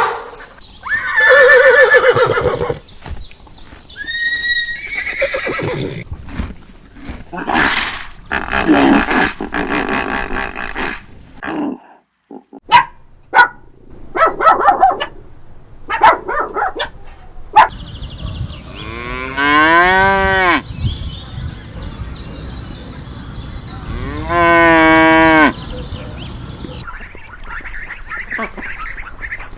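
A string of separate farm animal calls, one after another, with a few sharp clicks in between. Two long, loud calls near the end rise and fall in pitch.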